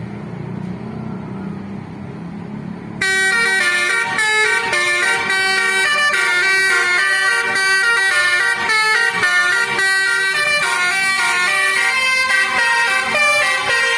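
Low rumble of a bus, then about three seconds in a telolet basuri multi-tone air horn on a Tunggal Jaya coach starts playing a quick melody of changing notes, loud and sustained.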